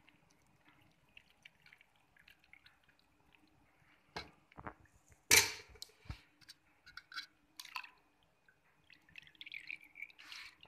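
Melted desi ghee dripping and trickling through a steel mesh strainer into a pot, with scattered clinks of metal cookware and one louder clatter about five seconds in.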